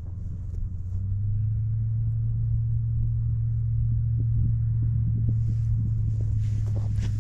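A steady low engine hum on one unchanging note, which swells up over about the first second and then holds. Footsteps crunching in snow start near the end.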